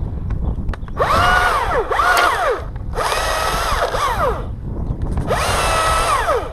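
Chinese-made chainsaw revved up three times. Each burst rises in pitch, holds at full throttle for about a second, then falls back toward idle.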